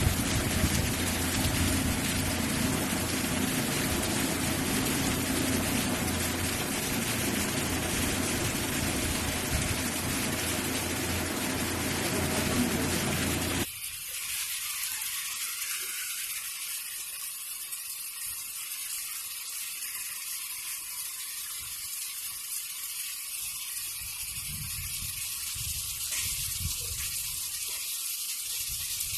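Heavy rain falling, a steady dense hiss with a low hum under it. About halfway through it switches abruptly to a thinner, higher rain hiss without the low end.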